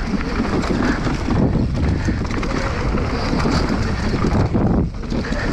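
Wind buffeting the microphone over a steady rumble from a downhill mountain bike racing down the trail, with a brief lull about five seconds in.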